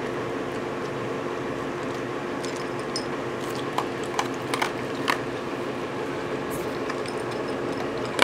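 Dachshund eating dry kibble from a ceramic bowl: a handful of short, sharp crunches and clicks, clustered a few seconds in and again near the end, over a steady low background hum.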